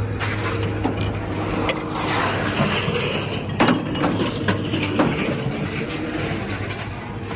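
Metal clanking and knocking as scrap is handled, with louder clanks about halfway through, over a steady engine hum.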